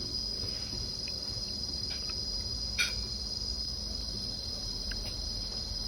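Steady high-pitched insect trilling, with one brief short sound about three seconds in.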